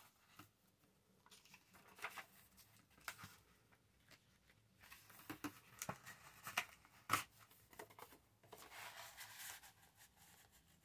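Faint paper rustling with scattered light clicks and taps as pieces of paper and card are handled and laid down, with a longer rustle about two-thirds of the way through.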